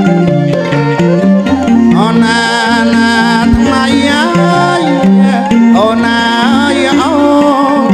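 Khmer traditional ensemble music: bowed two-string fiddles carry a gliding, wavering melody over a hand-played goblet drum, with a wooden xylophone and zither filling in.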